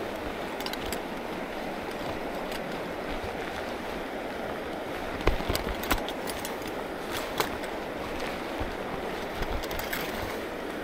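A creek's water rushing steadily, with a few sharp clicks and knocks about halfway through.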